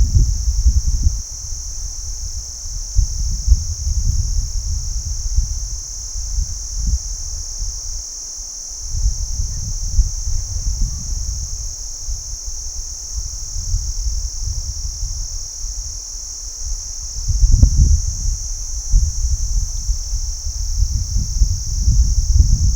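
Crickets chirping in a steady, high-pitched chorus, with an uneven low rumble underneath that swells and fades, strongest near the start and again in the last few seconds.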